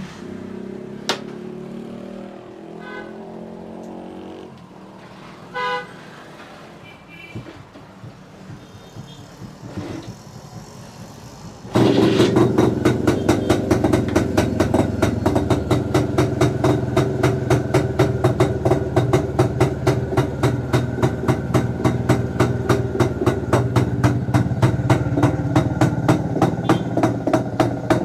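A two-stroke motorcycle engine starts abruptly about twelve seconds in and runs with a fast, even popping beat. Before it starts there are a few short horn-like toots over low background noise.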